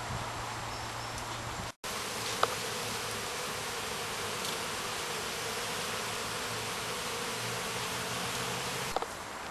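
Honeybees flying around their hives, a steady humming drone with a brief gap of silence about two seconds in.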